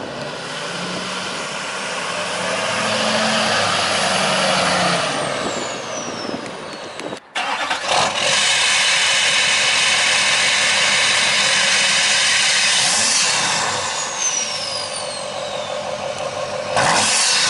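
Chevrolet Duramax 6.6 L V8 turbo-diesel, tuned and straight-piped with the DPF deleted, revved up twice through its exhaust. A high turbo whistle glides down in pitch as each rev falls away.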